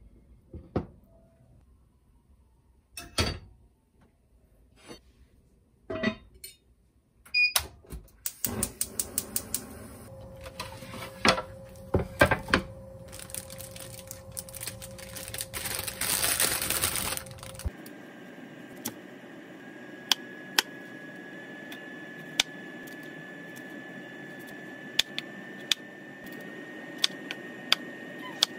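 Kitchen prep sounds. First a few knocks as an enamelled cast-iron pot is handled on a stone counter. Then a plastic produce bag crinkles as it is opened, and from a little past halfway a knife cuts broccoli on a wooden cutting board in sharp, separate clicks.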